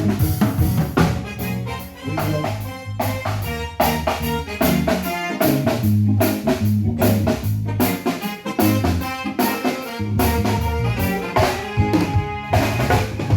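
Live band playing an instrumental stretch: drum kit strikes over a moving bass line, with keyboard chords on top.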